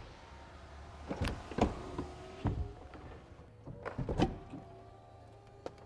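BMW 4 Series Convertible's power side windows lowering: a faint steady motor hum under several sharp mechanical clunks, as the retractable hardtop's opening sequence begins.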